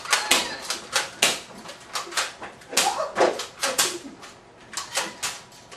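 Nerf foam-dart blasters firing in a rapid, irregular series of sharp pops and clacks, several a second.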